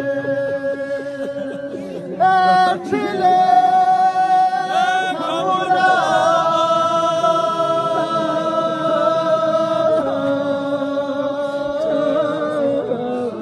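Unaccompanied chanting of a Balti marsiya, a Shia mourning elegy, sung in long drawn-out notes.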